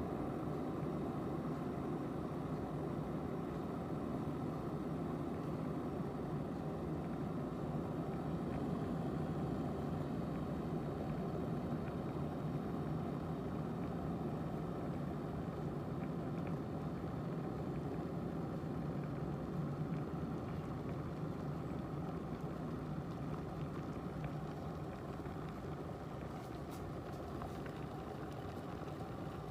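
Glass electric kettle heating water toward the boil: a steady rushing rumble that eases slightly near the end.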